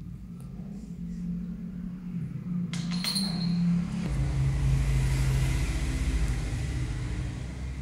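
Low engine rumble of a passing motor vehicle that swells about four seconds in and eases off near the end, over a steady low hum. A brief small metallic jingle sounds about three seconds in.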